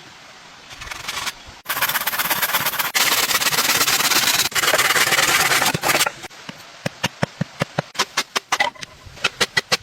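Hand-working wood or bamboo: a few seconds of loud, steady rough scraping, broken by abrupt cuts, then a run of sharp taps that come faster near the end.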